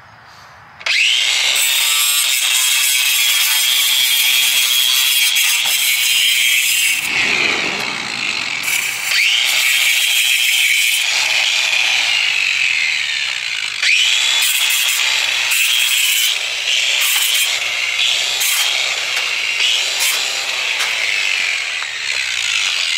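Angle grinder cutting chicken wire: it spins up with a rising whine about a second in, then runs on with its pitch sagging and climbing back a few times as the disc bites into the wire.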